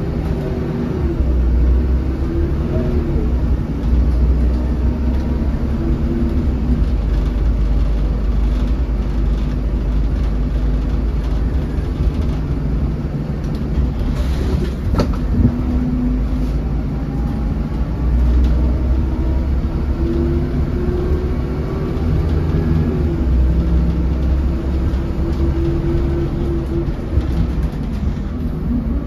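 Cabin sound of a 2008 MAN 16.240 Designline bus under way: a steady low engine and road rumble, with a faint whine that rises and falls as the bus speeds up and slows. A single sharp knock about halfway through.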